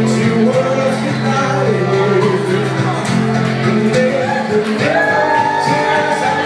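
Acoustic guitar played live, with a voice singing over it.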